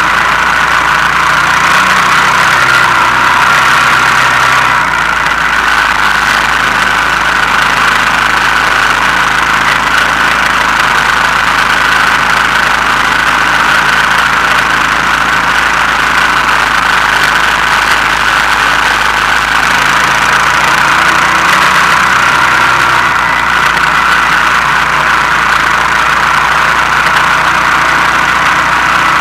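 Honda Foreman 450 ES quad's single-cylinder four-stroke engine running steadily while it tows sleds, heard close up from a camera mounted on the back of the quad.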